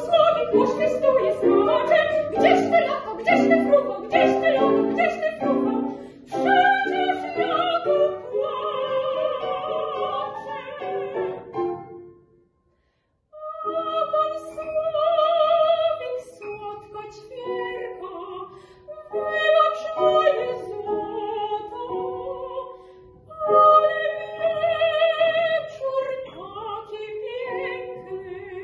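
A teenage girl singing in a trained, operatic classical style with vibrato, accompanied by piano. The music breaks off for about a second around twelve seconds in, then the voice resumes over the piano.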